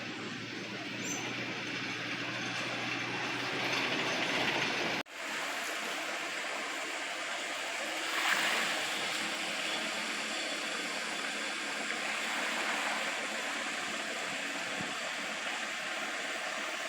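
Steady rushing outdoor background noise. It cuts out abruptly about five seconds in, then resumes, with a brief louder swell around eight seconds.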